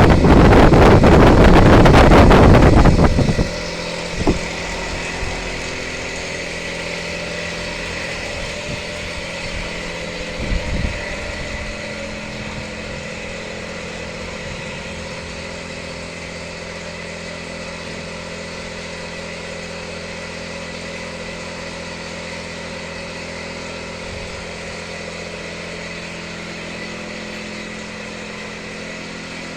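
Heavy 10-foot lathe running steadily, its motor and geared headstock giving a constant hum with a high whine. A loud rushing noise covers the first three seconds, and there are a few knocks about four and eleven seconds in.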